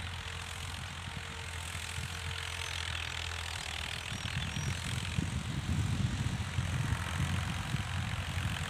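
Ghazi tractor's diesel engine running steadily under load as it pulls a plough.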